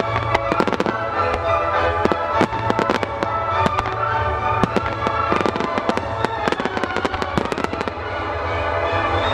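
Ruggieri fireworks bursting: dense clusters of sharp bangs and crackles from exploding shells, with music playing underneath.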